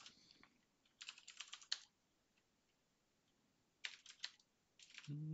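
Computer keyboard typing in short bursts of quick keystrokes: a run about a second in, another a little before four seconds, and a short one near the end.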